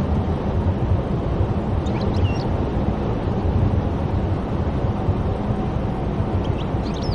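Steady low road and engine rumble heard inside a moving car's cabin. Faint, short high chirps come about two seconds in and again near the end.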